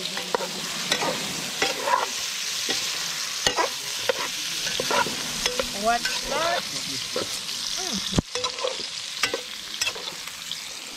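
Sausages and onion frying in a pan: a steady sizzle, with short squeaks, scrapes and clicks over it as the food is stirred and turned.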